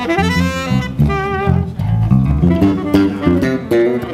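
Live band playing, with an electric bass guitar prominent in a steady run of low notes and a melodic line sliding over it.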